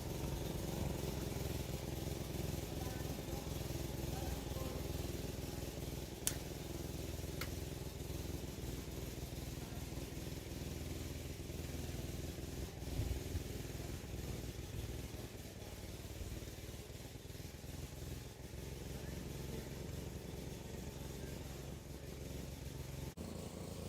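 Woodchipper running steadily, its motor humming, with two sharp cracks about six and seven seconds in.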